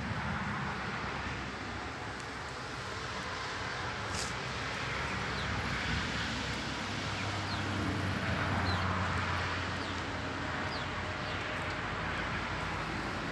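Steady outdoor background noise with a low engine hum that swells for a few seconds in the middle, and a few faint, short high chirps.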